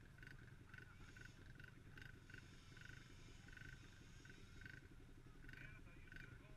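A 50cc four-stroke pee wee dirt bike engine idles faintly and muffled, with a rapid steady pulse. A faint high chirp repeats about three times a second.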